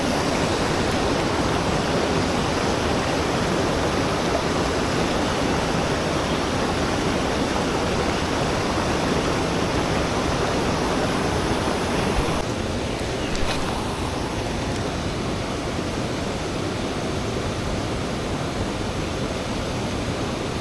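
Steady rushing of river water, a constant even wash of sound that drops a little quieter about twelve seconds in.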